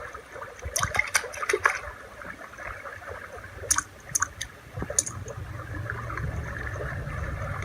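Water running or splashing, with scattered light clicks and clatters.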